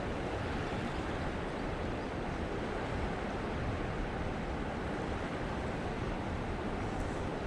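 Steady rushing noise of fast-flowing river water, with wind buffeting the microphone.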